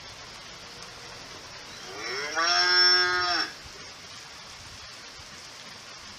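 A cow mooing once, a call of about a second and a half that rises in pitch at the start and then holds steady.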